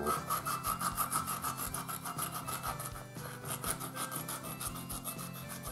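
Kitchen knife sawing back and forth through the flesh of a large unicorn leatherjacket filefish, a quick rhythmic scratching of several strokes a second with a brief pause about three seconds in, as the liver is cut free.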